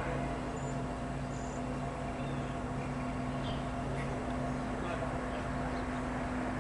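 Amtrak Keystone Service train passing through, a steady even rolling noise with a steady low hum and a few faint high chirps.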